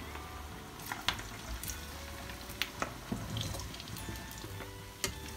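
Potato bites deep-frying in a pan of hot oil: a steady sizzle with scattered sharp crackles and pops.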